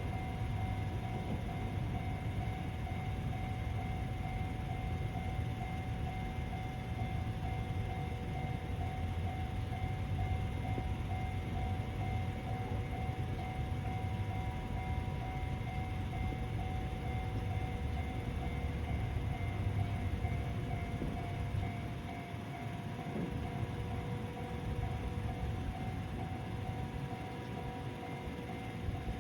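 Railway level crossing warning bell ringing steadily over the low rumble of a passing train. The rumble fades about three-quarters of the way through while the bell keeps ringing.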